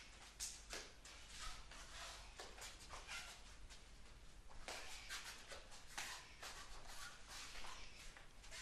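Sneakers scuffing and shuffling on a rubber gym floor: quick, quiet steps in and back.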